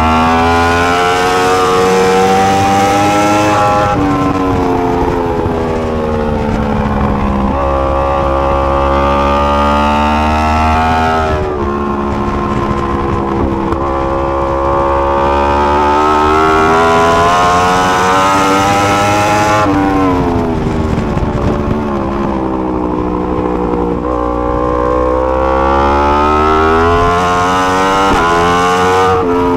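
2020 Yamaha R1M superbike's 998 cc crossplane inline-four engine at full racing pace: revs climb hard and break off abruptly at each gear change, then fall away in long glides as it slows for corners, several times over.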